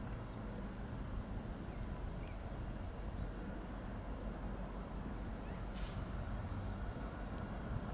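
Outdoor ambience: a steady low rumble that grows slightly louder over time, with a few faint high chirps.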